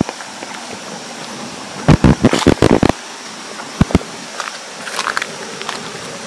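Footsteps crunching over dry leaves and twigs on a rocky forest path: a quick cluster of crackly steps about two seconds in and two more a little before four seconds, over a steady high hiss.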